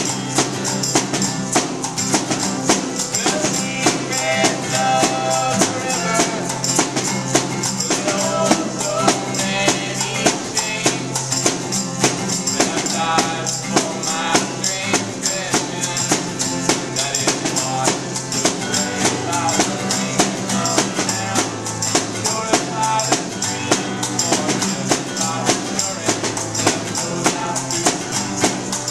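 Live acoustic band playing a steady beat: strummed acoustic guitar, a snare drum struck with sticks in a regular rhythm, and a small hand-held percussion instrument.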